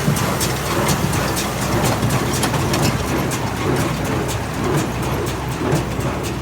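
Allis-Chalmers D17 diesel tractor's six-cylinder engine running steadily under load, driving a John Deere 336 square baler whose mechanism knocks about twice a second while baling hay.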